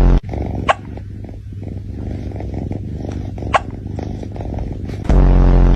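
A cat hiccuping, a short sharp hic about a second in and another midway, over a low steady rumble. A loud buzzing tone blares at the very start and again near the end.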